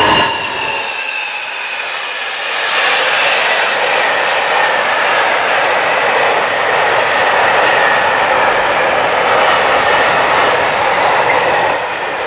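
Intermodal container freight train rolling past close by at speed: a steady rush of steel wheels on rail with faint ringing wheel tones. The Class 66 diesel locomotive heading it passes right at the start, its deep engine sound dropping away within the first second, leaving the wagons.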